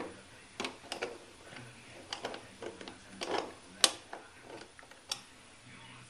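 Irregular clicks and knocks of an espresso machine's filter holder being pushed and twisted against the machine's group head, failing to lock on. The sharpest click comes about four seconds in.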